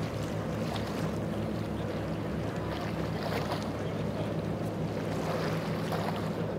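Twin Suzuki 250 V6 four-stroke outboards pushing a center-console boat at speed: a steady low engine drone over the rush of water from the hull and wake.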